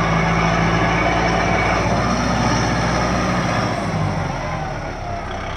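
Kubota 4x4 tractor's diesel engine running under heavy load as the tractor pulls up out of loose sand; about four seconds in, its note drops and eases off.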